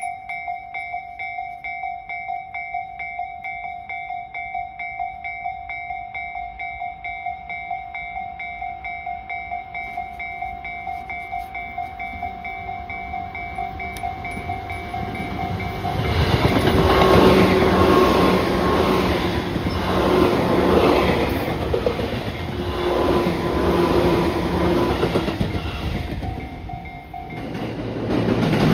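A level-crossing warning bell rings in a fast, even, repeating tone; about sixteen seconds in, a Tobu 10000-series electric commuter train comes past, its wheels clattering over the rail joints with a few held tones in the noise, covering the bell.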